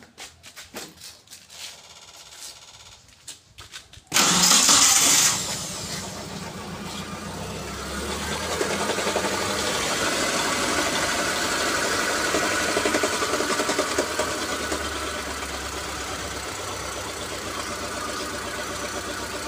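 Mitsubishi T120SS fuel-injected engine cranked and started about four seconds in, briefly loud as it catches, then idling steadily. Its rough tok-tok knock comes from the front of the engine, which the mechanics trace to a loose timing belt striking the timing-belt cover.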